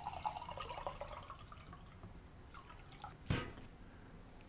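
Liquid pouring from a thermos carafe into a mug, the stream trickling off within the first second or so. A single sharp knock a little over three seconds in is the loudest sound.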